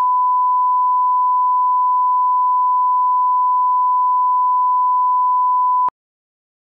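Line-up test tone of a bars-and-tone programme leader: a single steady pure 1 kHz reference tone, held at a constant level and cutting off abruptly about six seconds in.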